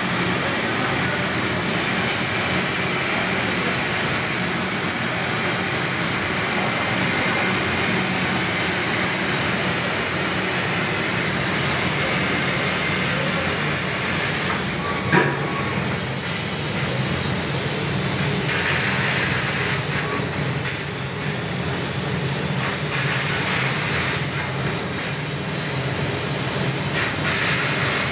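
6 kW laser cutting machine at work, a steady noisy rush of machinery, with one sharp click about halfway through.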